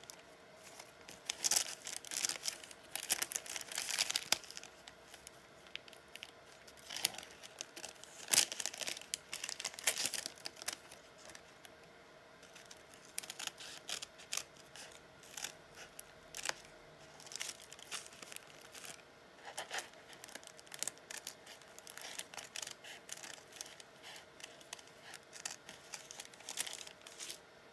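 Hand scissors snipping in short runs of quick cuts, mixed with the crinkle and rustle of paper pattern sheets and fabric being handled and shifted, in bursts with brief lulls between.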